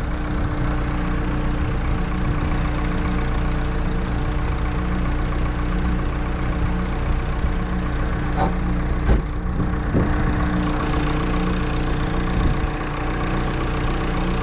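Engine idling steadily, with a few short knocks about eight to ten seconds in.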